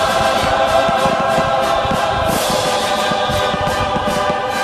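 Choral music with sustained chords plays over a fireworks display, with firework shells popping and crackling throughout.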